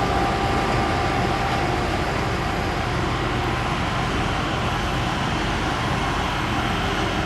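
Steady engine and running noise of small railroad maintenance-of-way track equipment moving along the rails.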